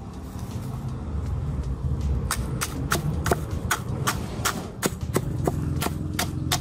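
Claw hammer pounding eggshells inside a plastic bag on a wooden block, crushing them to powder. It gives a steady series of sharp knocks, about three a second, that starts about two seconds in.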